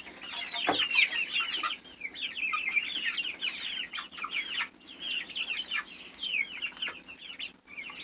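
A flock of young chickens peeping continuously while feeding, many short, high, falling peeps overlapping one another.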